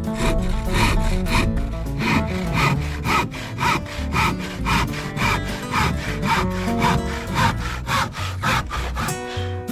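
Hand saw cutting through a wooden board in quick, even strokes, about three a second, over acoustic guitar music.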